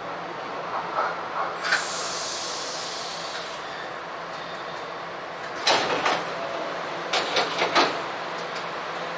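Electric commuter train standing at a station, heard from the cab: a hiss of released compressed air about two seconds in, lasting a second or two, then a pair of sharp clunks about six seconds in and a quick run of four more clunks shortly after.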